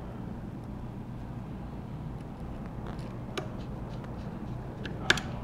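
Small metal clicks of repair tools and tiny screws on an iPhone 6's internal bracket: a few faint ticks, then a sharper double click about five seconds in. A steady low hum runs underneath.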